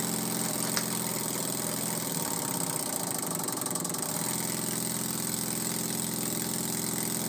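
Small brass double-acting oscillating model steam engine running steadily on compressed air, its beat even, with a single click about a second in. Its note wavers for a couple of seconds in the middle.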